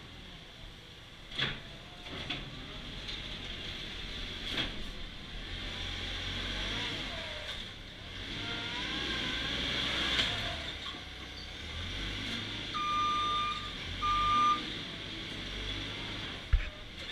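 Massey Ferguson telehandler's diesel engine running and rising and falling as it works, mucking out, with a few sharp knocks early on. Near the end its reversing alarm sounds twice.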